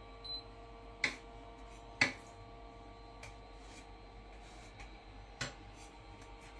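Quiet room tone with a steady electrical hum, a short high beep just after the start, and a few sharp clicks, the loudest about one and two seconds in and another near the end.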